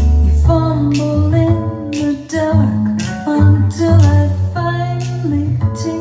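Recorded music played back through a car audio system with an Alpine 7619R head unit: plucked guitar over deep, strong bass notes.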